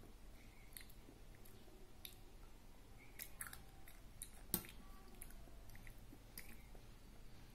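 A child chewing food quietly, with small clicks of a metal spoon in a ceramic bowl. One sharp clink of the spoon against the bowl comes a little past halfway.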